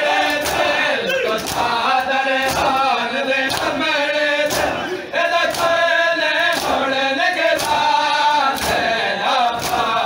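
Group of men chanting a noha lament in unison, with hands slapping bare chests in matam about once a second.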